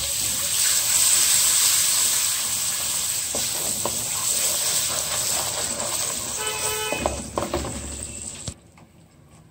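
Butter sizzling and bubbling as it melts into hot caramelized sugar in a pan, stirred with a wooden spatula. The hissing sizzle cuts off abruptly about eight and a half seconds in.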